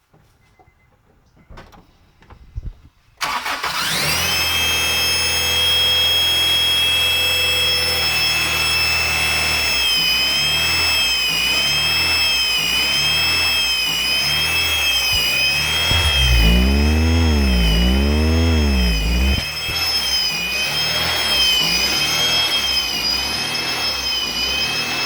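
Honda B20B four-cylinder engine cranking and catching about three seconds in, then running with a loud, steady high-pitched screech over it. The revs rise and fall a few times about two-thirds of the way in. The owner hears knocking in it as well and takes it for rod knock.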